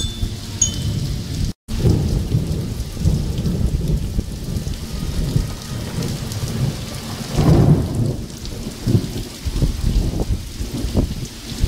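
Hailstorm with heavy rain: a dense, irregular pelting of hailstones and rain with many low thumps, and a louder surge about seven and a half seconds in. The sound cuts out for an instant just under two seconds in.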